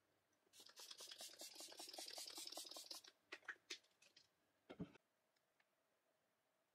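Faint handling of a plastic skincare bottle: a fast, even run of scratchy strokes for about two and a half seconds, then a few light clicks and one soft knock.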